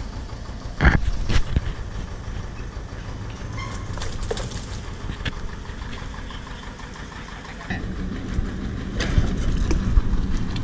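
Borewell drilling rig's engine running steadily, with two sharp knocks about a second in as drill pipe is handled. About three quarters of the way through, the engine grows louder with a steadier low hum.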